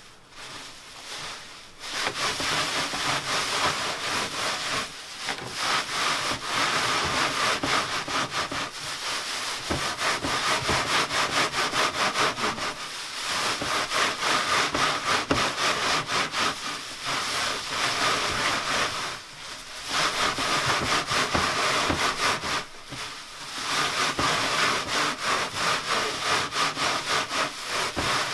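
Dried nettles rubbed hard by gloved hands across a sieving screen in a wooden frame, a continuous dry rasping scrape that starts about two seconds in, with a few short pauses; the rubbing strips the crumbled leaves from the woody stems.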